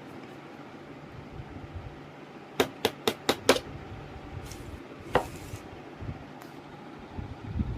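Sharp knocks of a kitchen utensil on a hard surface: five quick strikes in just over a second, then one more about two seconds later, over a faint steady background hiss.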